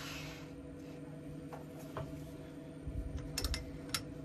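Wood lathe running steadily with a spinning chuck and wooden blank, a low even hum of several tones. A few sharp clicks come about three to four seconds in as a hand-held Jacobs chuck with a drill bit is brought up to the workpiece.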